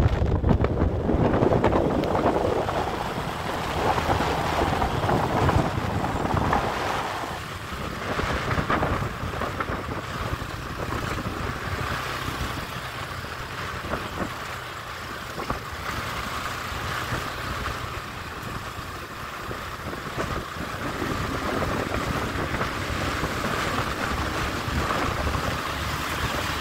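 Minsk X250 enduro motorcycle engine running under way, with wind buffeting the microphone. The engine is louder for the first several seconds, then settles to a steadier, quieter pace.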